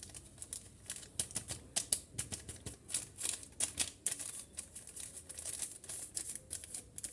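Hand whisk clicking and tapping against a mixing bowl while cake batter is stirred: many short, irregular clicks, several a second.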